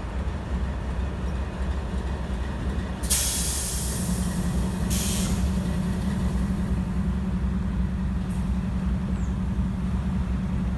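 Diesel freight locomotive running with a low rumble. About three seconds in comes a loud burst of air hissing, typical of train air brakes, and a shorter second hiss a couple of seconds later. The engine hum grows louder from about four seconds in.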